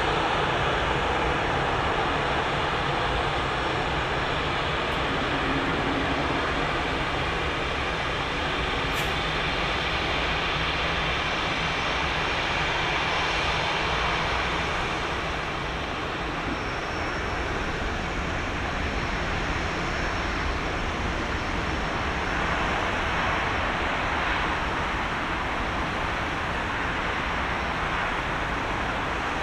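Airbus A350-900 with Rolls-Royce Trent XWB engines landing: a steady, continuous jet engine noise as it flares, touches down about ten seconds in and rolls out along the runway.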